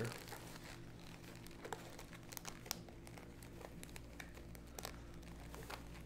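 Faint rustling and crinkling of clothing and a soft fabric holster being worked down inside a belted waistband, with scattered small clicks and scrapes.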